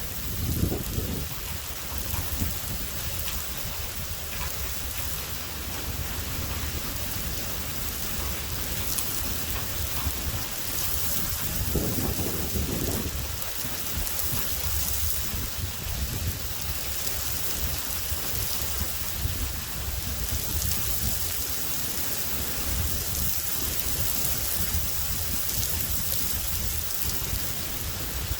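Steady heavy rain during a thunderstorm, with low rolling thunder under it that swells about a second in and again around twelve seconds in.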